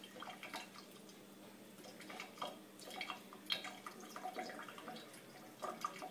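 A thin stream from a kitchen faucet trickling into a stainless steel sink, with irregular small splashes and drips as a kitten paws at the water near the drain. The loudest splash comes about halfway through, with two more just before the end.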